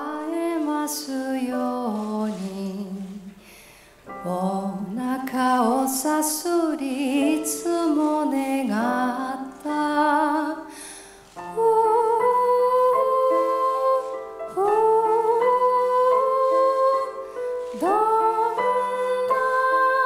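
A woman singing a slow song live into a microphone, accompanied by a grand piano; in the second half she holds long notes with a slight vibrato.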